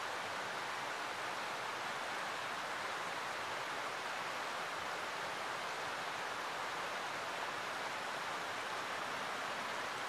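Steady rush of a rocky mountain stream, water running over stones in an even, unbroken wash.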